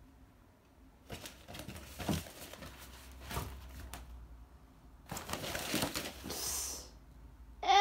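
Fabric pop-up cat tunnel rustling and knocking against the floor as a cat scrambles inside it and rolls it over, with a denser crinkling stretch about five seconds in. Right at the end comes a short, loud voice that falls in pitch.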